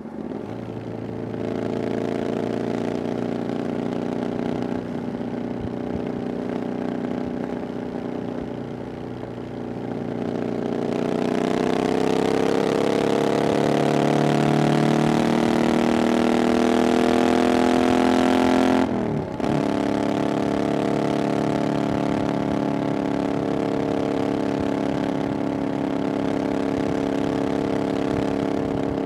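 Triumph Bonneville Scrambler 900's 900cc parallel-twin engine running through aftermarket "VW pipes" exhaust while riding. It holds a steady note at first, then accelerates with the note rising for several seconds. The sound breaks off for a moment about two-thirds of the way in, then the engine runs steady again.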